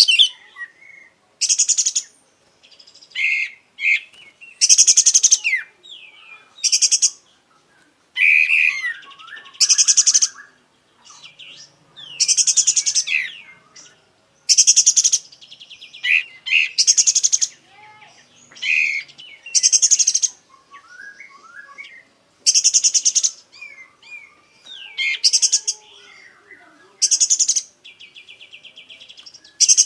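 Kapas tembak singing vigorously in short, loud, high rattling phrases about every one to two seconds, with quieter varied chirps and whistles between them.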